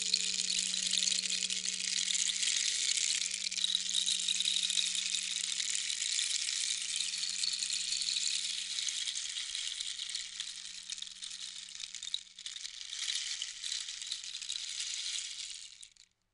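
Closing seconds of a rap track: a steady, high crackling rattle like static or a shaker over a low held tone that fades away in the first half, the rattle cutting off suddenly near the end.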